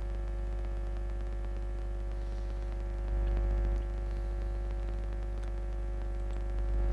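Steady electrical mains hum with a buzzing stack of overtones, the low hum swelling briefly a few seconds in and again near the end.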